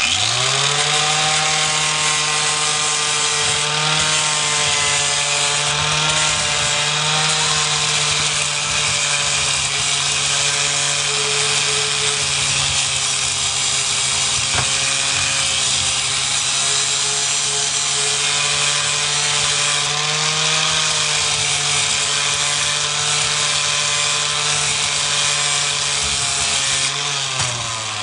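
Angle grinder grinding on cast iron. It spins up at the start, runs steadily with slight dips in pitch under load, and spins down near the end.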